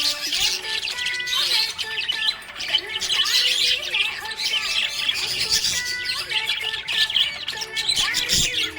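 Budgerigars chattering and chirping nonstop in a dense, warbling stream, over a background melody of held notes.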